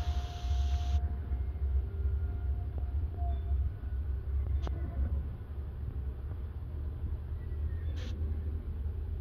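Steady low rumble of indoor room background noise, with two brief clicks about four and a half and eight seconds in.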